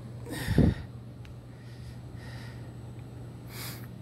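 A short, sharp exhale blowing straight onto the phone's microphone about half a second in, followed by two fainter breaths, over a steady low hum.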